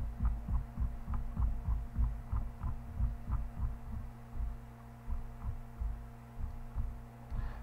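Computer mouse scroll wheel being turned in quick spurts, heard as irregular soft low thumps and faint ticks, over a steady electrical hum.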